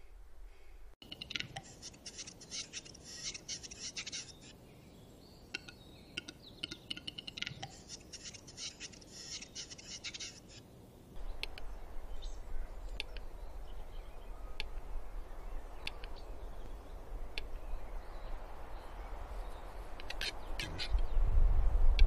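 Male western capercaillie's display song: dry clicking notes, first in two dense runs lasting a few seconds each, then sparse single clicks about a second or more apart. A steady low rumble runs under the later clicks and swells near the end.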